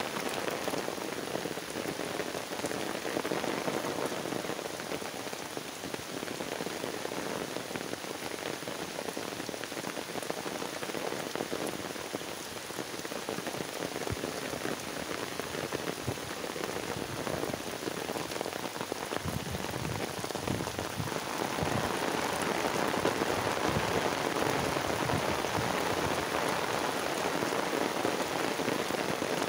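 Heavy rain pouring steadily onto wet ground and standing water, growing louder about two-thirds of the way through.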